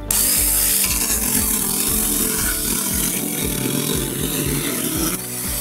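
Battery-powered Haoyeya 4-inch mini chainsaw starting abruptly and cutting into a wooden board, a loud steady buzz of motor and chain in wood that gets a little quieter about five seconds in.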